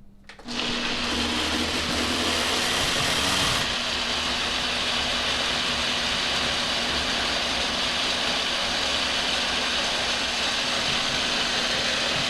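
Electric kitchen blender switching on about half a second in and running at a steady whir; its sound shifts slightly a few seconds in, then holds even.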